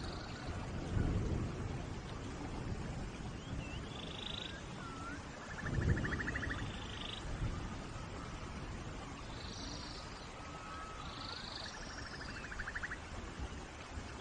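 Steady rain, with short chirping and buzzy trilling animal calls of a forest above it. Low rumbles swell about a second in and again about six seconds in.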